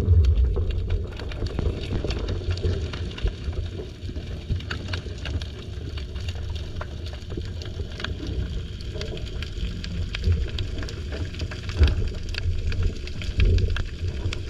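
Underwater sound at a GoPro hanging on a line beside a pier piling: a low rumble of moving water with steady, scattered crackling clicks.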